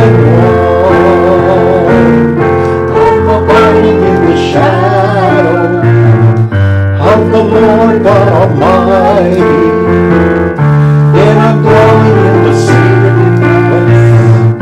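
Gospel song: a voice singing over sustained keyboard chords.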